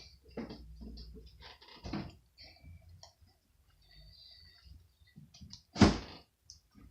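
Scattered light clicks and taps from slime being worked by hand in a bowl, with one loud knock about six seconds in.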